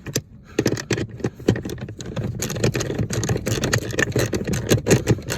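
Dense, irregular metallic clicking and rattling of hand tools working a mounting screw of a truck's pedal assembly by hand, many small clicks a second, getting busier after the first couple of seconds.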